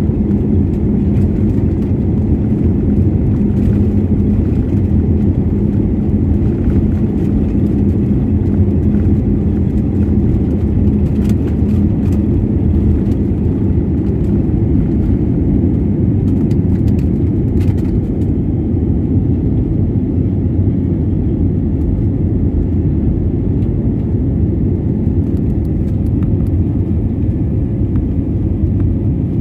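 Twin jet engines at takeoff thrust heard inside the cabin of an Airbus A320-family airliner: a loud, steady rumble through the takeoff roll, with a few brief rattles and knocks from the runway. The sound becomes smoother about two-thirds of the way through, once the plane has lifted off and is climbing.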